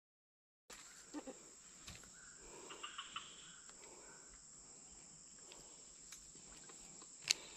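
After a moment of dead silence, a steady high-pitched drone of insects in tropical undergrowth, with a few faint chirps about one to three seconds in and a single sharp click near the end.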